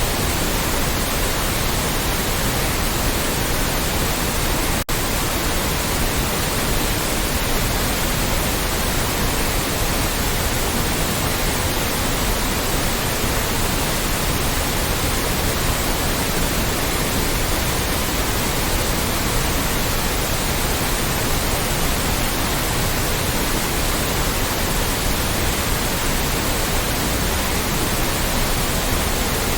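Loud, steady white noise spread evenly from the lowest to the highest pitches, with a split-second dip about five seconds in.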